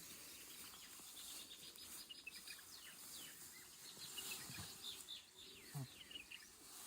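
Faint chirping of small birds: many short, quick chirps that drop in pitch, scattered throughout.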